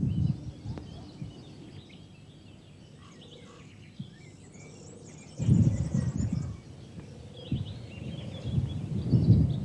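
Outdoor lakeside ambience: wind rumbling on the microphone in gusts, with birds chirping faintly.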